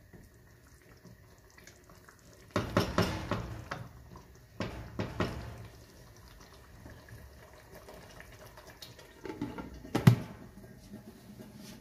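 Wooden spatula stirring a wet mixture of minced meat, potatoes and peas in a nonstick pot, in two bursts a few seconds in. About ten seconds in, a glass lid is set on the pot with a sharp knock.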